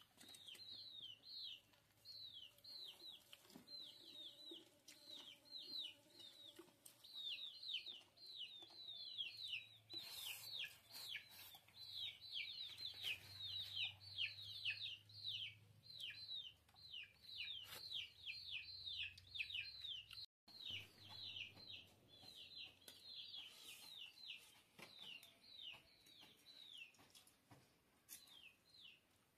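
Chicks peeping: a steady stream of short, high, falling peeps, several a second, thinning out near the end.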